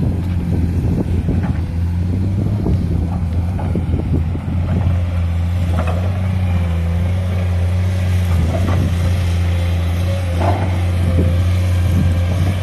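A heavy vehicle's engine running steadily at low speed, a constant low hum with no revving.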